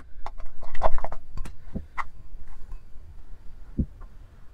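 Homemade slime squeezed and worked by hand, giving sticky squelches and clicking pops. They come thickest about a second in, then thin out to a few separate pops.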